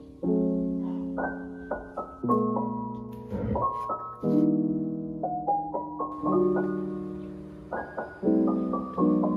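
Soft lo-fi piano background music: slow chords with a light melody on top, each struck note ringing and fading away.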